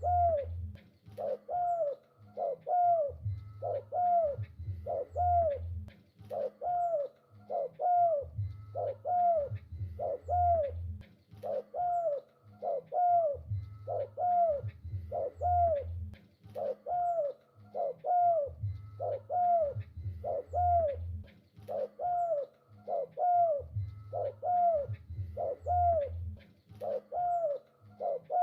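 Spotted dove (tekukur) cooing over and over in a steady, unbroken run of short rounded coos, a little under one a second. A low hum comes and goes underneath.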